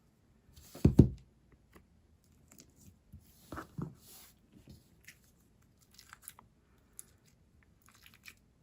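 Handling of a white glue slime with straw beads and its container: a thump about a second in, a softer one a little before the middle, then scattered light crackles and clicks.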